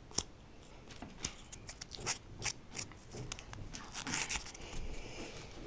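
Emery board rasping against a fingernail in short, irregular strokes, filing off the overhang of an applied nail polish strip. A denser run of strokes comes about four seconds in.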